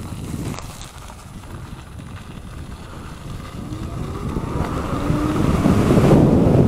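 Electric motor of a high-powered DIY e-bike whining up in pitch as it accelerates, with tyre and wind noise building and getting louder.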